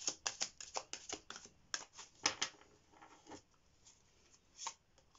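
A deck of oracle cards being overhand-shuffled by hand: a quick run of soft card slaps for the first two and a half seconds, then a few scattered taps as the shuffling slows and stops.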